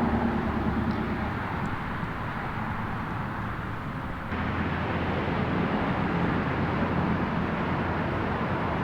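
A car on the road, with steady road and engine noise. The sound changes abruptly about four seconds in.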